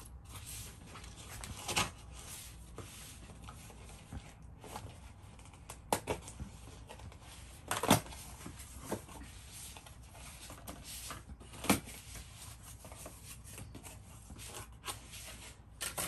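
Handling noises: a few scattered knocks and small rustles as things are moved about, the loudest knock about eight seconds in.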